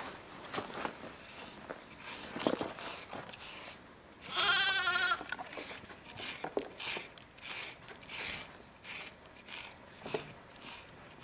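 A stick scraped repeatedly along a miniature pig's bristly back in a run of short rasping strokes. A single wavering bleat about a second long comes about four seconds in.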